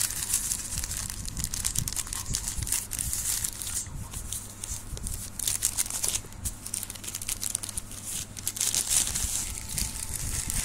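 Black plastic mailer bag crinkling and tearing as it is pulled open by hand, a dense crackle in irregular spurts with a few short pauses.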